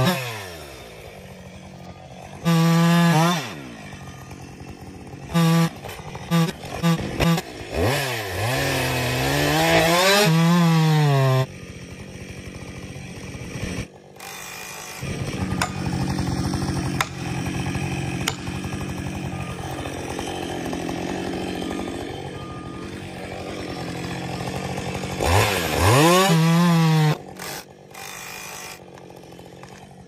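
Two-stroke chainsaw felling a conifer. It is revved up and blipped several times, then runs under load with its chain cutting through the trunk for about a dozen seconds, revs hard once more, and drops back near the end, where a few sharp knocks follow.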